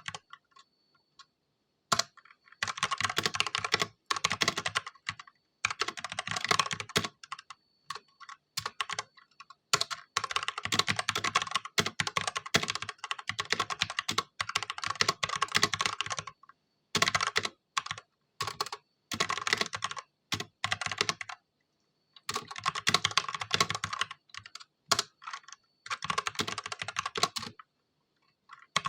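Ajazz K870T tenkeyless mechanical keyboard with stock Huano Red linear switches being typed on: runs of rapid key clacks a few seconds long, broken by short pauses.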